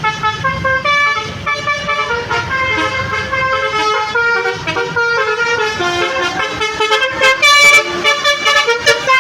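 A basuri telolet multi-tone bus horn playing a melody: several horn tones sound together and step quickly from note to note.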